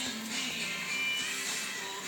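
Background music playing.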